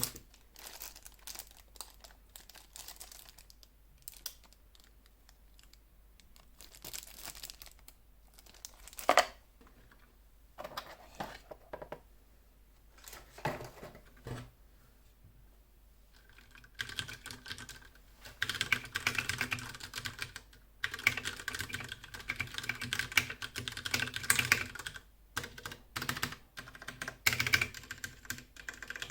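Ducky One 2 SF mechanical keyboard with brown switches: scattered separate clicks and knocks at first, then fast, continuous typing from about halfway through.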